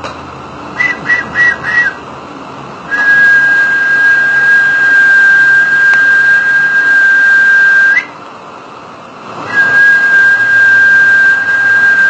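A person whistling a high, steady note held for about five seconds. It ends with a brief upward flick and starts again after a short pause. Near the start come four short, quick whistles.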